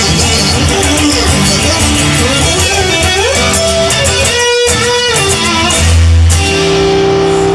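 Instrumental rock music led by electric guitar, with a bass line underneath; a note bends upward about three seconds in.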